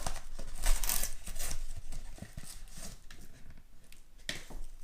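A wallet's packaging being opened by hand: irregular rustling, crinkling and tearing, with a few sharp handling knocks.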